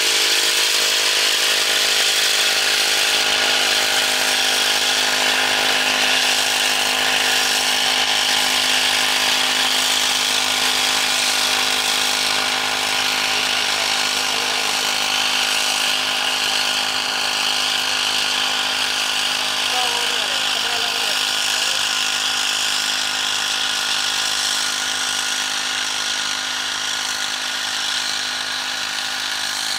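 Small two-stroke engine of a backpack power sprayer running steadily at high speed, a constant high buzz, growing slightly fainter toward the end.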